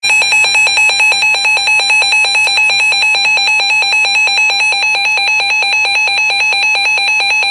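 Weather radio receiver's alert alarm: a loud, rapid, evenly pulsed electronic beeping at one pitch, sounding off for an incoming flash flood warning.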